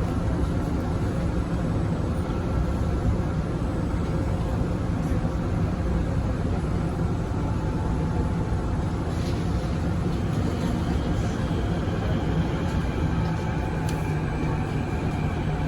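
Kawasaki & CRRC Sifang CT251 metro train running, heard from inside the car: a steady rumble of wheels on rail with a few faint whining tones from the drive.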